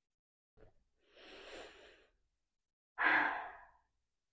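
A woman breathing deeply through the nose to smell a new fabric bag pressed against her face: a long soft breath in about a second in, then a louder breath like a sigh near three seconds.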